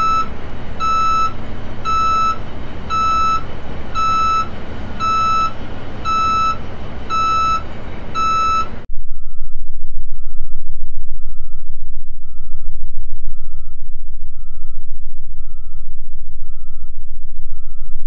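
Truck backing up, its reversing alarm beeping about once a second over engine rumble. About halfway through, the same recording switches to a version filtered to sound as it would on Mars: the beeps are muffled almost away and a loud low rumble is left, because the thin carbon-dioxide air absorbs high pitches.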